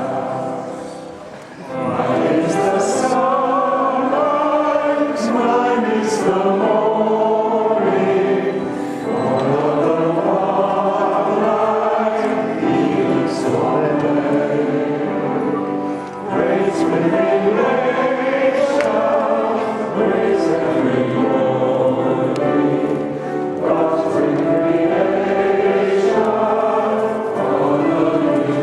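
A choir singing a hymn, many voices together, with a brief dip about a second in before the singing resumes.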